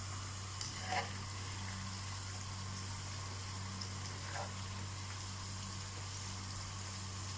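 Hot oil sizzling and bubbling in a frying pan as vegetable slices deep-fry, over a steady low hum. A few light clinks of a wire-mesh skimmer against the pan come about a second in and again near the middle.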